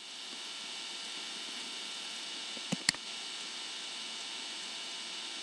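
Two computer mouse clicks in quick succession a little under three seconds in, over a steady hiss and electrical hum from the microphone.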